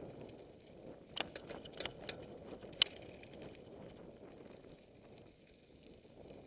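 Downhill mountain bike rolling over a loose slate trail: tyres crunching and the bike rattling, with a cluster of sharp clacks about one to two seconds in and one loud crack near three seconds as it hits rocks. The rolling noise grows quieter in the second half as the bike slows.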